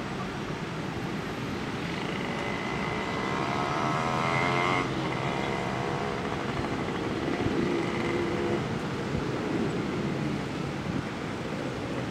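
Steady street traffic mixed with a passenger train running away along an elevated track, the noise swelling as a vehicle passes about four to five seconds in. A faint high whine comes and goes in the first half.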